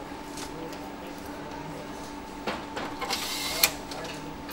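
Steady assembly-line hum with scattered small clicks. About three seconds in, an electric screwdriver whirs for under a second as a screw is driven into a desktop PC chassis, ending in a sharp click.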